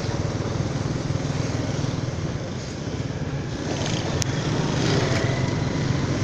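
Small motorcycle's engine running steadily while being ridden, heard from the seat, with a faint hum of street traffic around it; a single sharp click about four seconds in.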